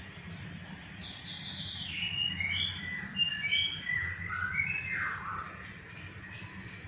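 Murai songbird singing a quick run of varied whistled and chirped notes, jumping between high and lower pitches with some falling glides, starting about a second in and pausing near the end.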